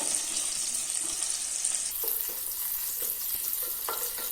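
Chopped ginger, garlic and slit green chillies sizzling in hot oil in a kadai, stirred and scraped with a spoon as they sauté.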